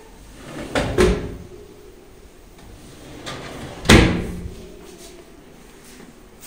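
Pull-out wire basket drawers of an aluminium kitchen cabinet being pushed shut: two knocks about a second in, then a louder bang about four seconds in with a brief ring after it.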